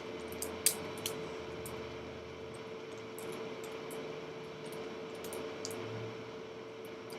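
Light plastic clicks of a 1x3x3 Rubik's cube's layers being flipped, scattered irregularly, with two sharper clacks about a second in, over a steady hum.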